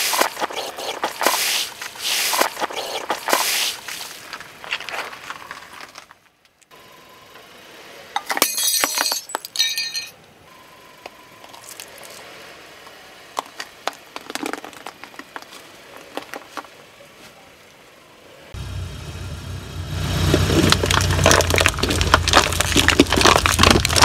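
A car tyre slowly rolling over and crushing a run of objects on asphalt: a soda-filled balloon bursting and splashing, a painted egg shell cracking, and aluminium foil trays crinkling flat. Dense crunching and crackling for the first few seconds, a short burst of cracking about a third of the way in, sparse clicks after that, and a car engine running low from about three-quarters in under loud foil crinkling.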